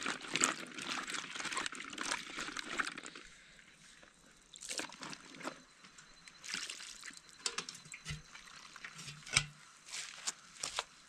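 Water pouring and trickling for about three seconds, then stopping, followed by scattered light clicks and knocks with two dull thumps near the end.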